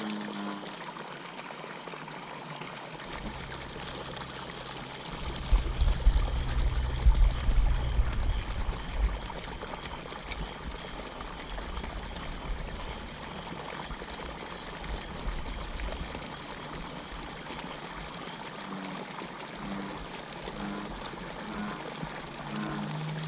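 Water pouring steadily into the pond from the inflow, where fresh rain runoff is pumping in. A heavy low rumble on the microphone runs from about five to nine seconds in.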